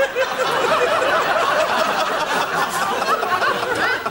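Studio audience laughing, many voices together in one long laugh.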